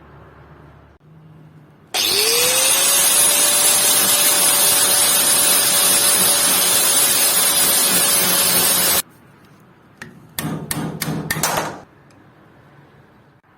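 Electric power tool spinning up and running at a steady whine under a loud, even grinding hiss for about seven seconds, then cutting off. A few short bursts of noise follow a moment later.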